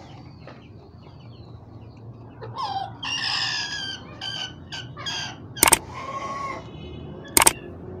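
A rooster crows about three seconds in, followed by a few shorter clucking calls. Two sharp, loud clicks come near the end and are the loudest sounds.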